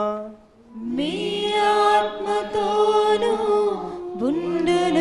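Sung liturgical response in Telugu, the chanted reply to "The Lord be with you" in the Mass's Preface dialogue. It begins after a short gap about a second in and continues as long held notes with little pitch movement.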